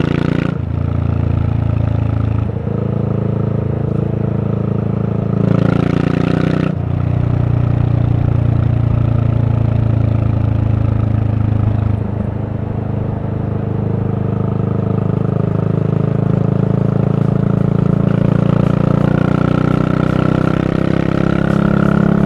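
Yamaha SR400's single-cylinder four-stroke engine running under way through a Goods tapered cone slip-on muffler. The exhaust note drops sharply about half a second in and again near seven seconds in, then climbs gently near the end.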